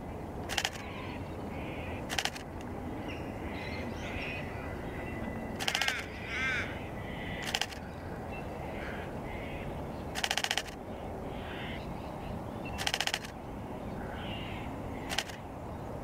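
Canon R7 camera shutter firing seven times, in single clicks and three short rapid bursts of a third of a second or so. Behind it, wild birds call on and off, with one falling call about six and a half seconds in.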